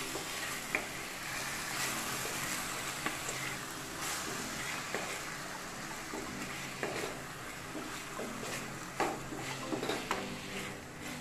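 Chicken pieces and onions sizzling in hot oil in a kadai, with a wooden spatula stirring and scraping against the pan in short irregular knocks.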